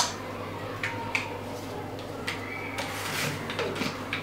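A few light clicks and knocks as kitchen utensils and a plastic blender jar and lid are handled, over a low steady hum.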